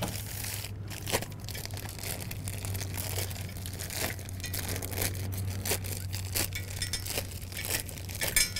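Plastic packaging crinkling and tearing as it is stripped off a bicycle's rear fender, in irregular rustles and crackles.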